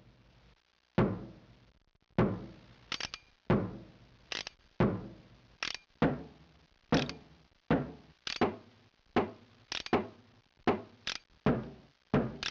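A run of sharp knocks, roughly one to two a second and unevenly spaced, each followed by a short echo. They start about a second in.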